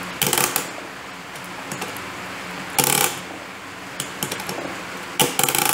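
Parking brake lever of an International Harvester 484 tractor being worked by hand, its ratchet and pawl clicking in three quick bursts of metal clicks, with a few lighter clicks between; the lever has just been reassembled with a new spring.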